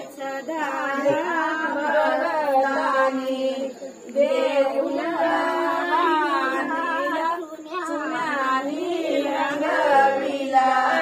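Group of women singing a devotional song together in long, wavering sung phrases, with brief breaks between lines.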